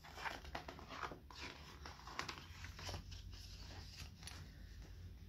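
Faint rustling and soft scuffing of a large picture book's paper page being turned and the book being handled.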